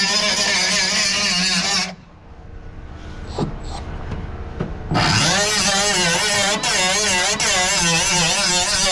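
Angle grinder running against metal, its pitch wavering under load. It stops about two seconds in, with a few light clicks, and is run up again about five seconds in.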